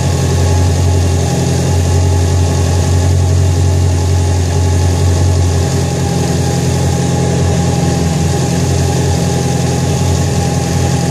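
Mitsubishi Lancer Evolution IX MR's turbocharged 4G63 inline-four, fitted with Kelford 272 camshafts, idling steadily with the hood open on its first start-up after the cam swap.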